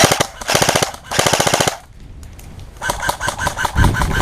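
Airsoft electric guns firing full-auto: three short bursts of rapid shots in the first two seconds, then, after a pause, another run of rapid, evenly spaced shots at about ten a second from about three seconds in.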